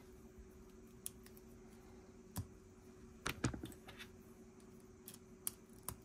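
Plastic Lego pieces clicking and clattering as they are handled and pressed together: scattered sharp clicks, with a quick cluster of several about three seconds in, over a faint steady hum.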